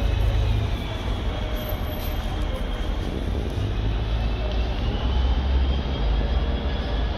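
Steady, loud low rumble of traffic, with a faint high whine rising and falling in the middle.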